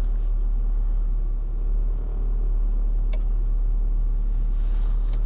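Renault Arkana engine idling steadily on a cold start in hard frost, heard from inside the cabin. There is a single sharp click about three seconds in, of the kind the owner notices when the heater is switched on, and a faint rush of air rises near the end.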